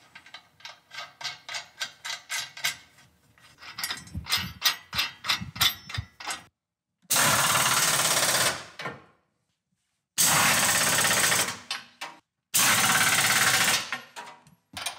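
Rapid runs of clicking as the hitch bolts are run in, then a pneumatic wrench on an air hose driving the Torklift SuperHitch bolts tight in three bursts of about a second and a half each.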